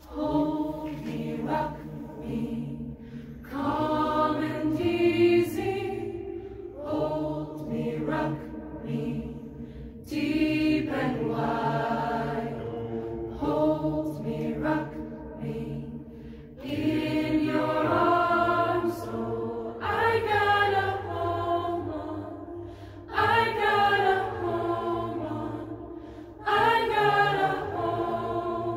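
Youth choir singing a spiritual a cappella, in phrases that start about every three seconds. The sound rings in the natural echo at the top of a mine shaft.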